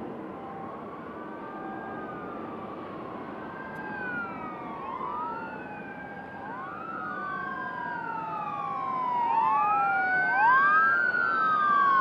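Emergency vehicle siren wailing in slow rising-and-falling sweeps, one every two to three seconds, with overlapping wails, growing steadily louder as it approaches.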